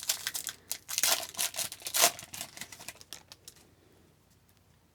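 A foil wrapper of a hockey card pack being torn open and crinkled in the hands: a quick run of crisp crackles, loudest around one to two seconds in, dying away by about three and a half seconds.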